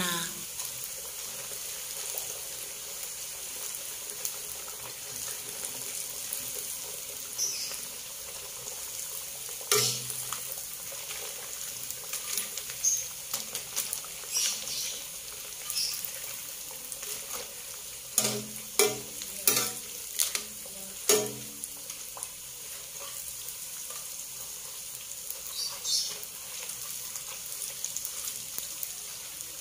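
Peanut crackers (peyek) of rice-flour batter sizzling steadily as they deep-fry in hot oil in a stainless steel wok. A metal ladle knocks against the pan a few times, once about ten seconds in and several times a little past the middle.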